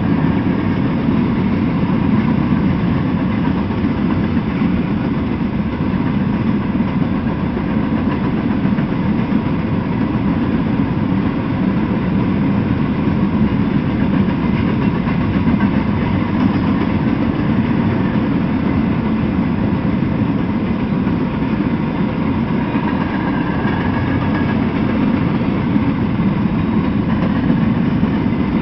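Freight train of empty intermodal flatcars rolling past, a steady noise of steel wheels on the rails.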